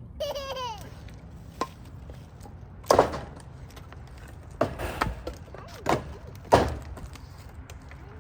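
Split firewood logs thrown one after another into a trailer, about six wooden knocks and clunks as they land on the stacked wood. A short high voice sounds near the start.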